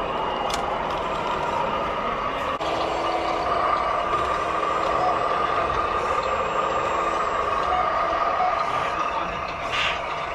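Radio-controlled model trucks running, their sound modules playing a steady truck engine noise with a few short beeps in the second half.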